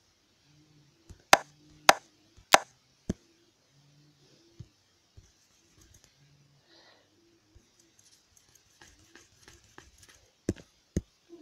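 Sharp taps on a tablet touchscreen: four loud ones about a second apart early on, scattered lighter ticks, then two more loud taps near the end.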